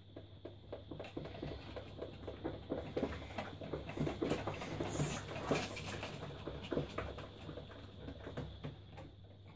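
Homemade slime and shaving foam being squished by hand on a tabletop and stirred with a spoon in a bowl: a rapid, irregular crackle of small wet, sticky pops and squelches, busiest about halfway through.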